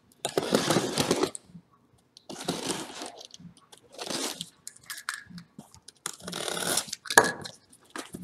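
Box cutter slicing through packing tape and cardboard on a shipping box, in four or five rasping strokes, with a sharp crack near the end.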